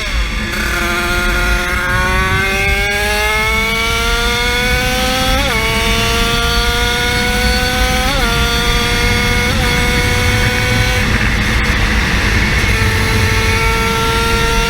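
Small 50cc engine pulling at full throttle: its pitch climbs steadily for about five seconds, then holds high and nearly level, with a few brief pitch blips.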